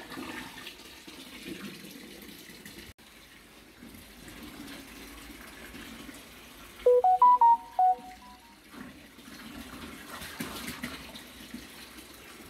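Garden hose running water into a plastic stable bucket, a steady filling hiss. About seven seconds in, a short run of loud electronic beeps at a few different pitches.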